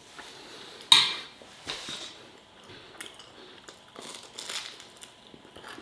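Eating at the table: a sharp clink, the loudest sound, about a second in, then small chewing and crunching noises and light clicks.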